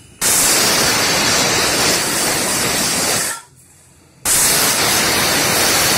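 Aluminium stovetop pressure cooker whistling: steam forcing up the weight valve in two loud rushing blasts, each about three seconds long, with a short pause between. Each whistle is a sign that the cooker is at full pressure and is counted to time the cooking.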